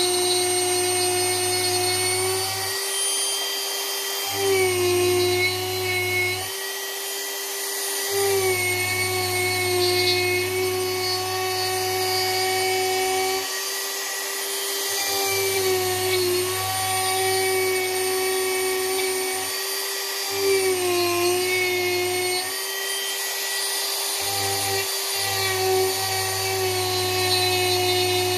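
Corded Dremel rotary tool running with a steady high whine as its bit carves into a wooden post. The pitch sags briefly several times as the bit is pressed into the wood and the motor is loaded.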